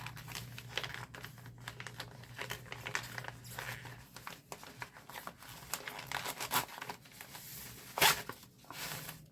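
Crinkling and rustling of a cross-stitch kit's sealed packaging as it is handled and opened, a run of small crackles with a louder rustle about eight seconds in.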